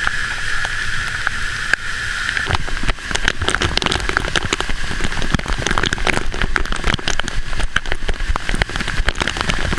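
Flash-flood waterfall spray pelting close to the microphone: a steady rush of falling water, with a dense patter of droplet hits that thickens from about two and a half seconds in.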